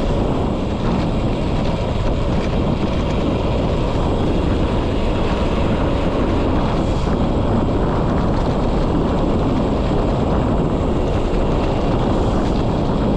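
Wind rushing over the microphone of a handlebar-mounted GoPro on a moving road bike, mixed with the rumble of the tyres on a tarmac lane: a loud, steady noise.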